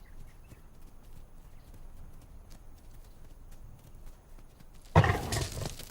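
Faint scattered hoof sounds from an oryx on dry ground, then a sudden loud burst of animal noise about five seconds in, heavy in the low end.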